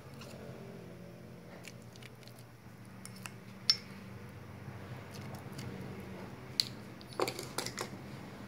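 Ceramic spoon scraping in a small ceramic bowl and clinking against it while chopped green onions are scooped into the soup: a few short sharp clinks, a cluster of them near the end.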